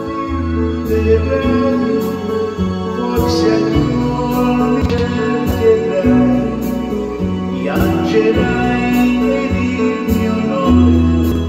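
Recorded backing track with a bass line and sustained chords, with a man singing along into a handheld microphone.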